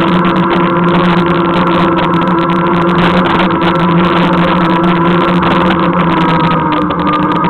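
Segway's electric drive whining steadily while it rolls along at a constant speed, over a rough rumble of wind and wheel noise.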